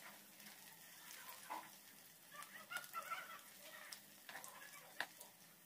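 Faint sizzling of potato snack balls deep-frying in soybean oil on a low-medium flame, with scattered crackles and a few clicks of a metal slotted spoon against the pan. A few faint higher-pitched sounds come about halfway through.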